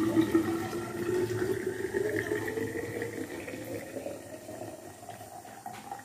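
Hot water poured from a steel saucepan into a tall stainless-steel vacuum flask. The pouring note rises steadily in pitch as the flask fills.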